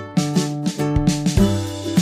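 Background music: a plucked-string tune over a beat with low drum thumps.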